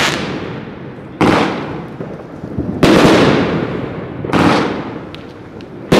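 Lucky Fireworks 5027 100-shot fireworks cake firing: four aerial shots burst about a second and a half apart, each a sudden bang that fades away over a second or so.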